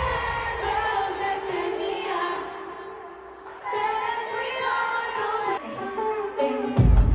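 Live pop concert music over a stadium sound system: held sung notes and chords with no bass, a brief quieter stretch about halfway, then a heavy bass beat kicks in near the end.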